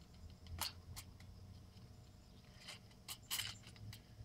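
Faint plastic clicks and scrapes as an electric fuel pump is slid into the plastic sleeve of a fuel sending unit assembly. There are a few scattered clicks, the loudest small cluster a little past three seconds in.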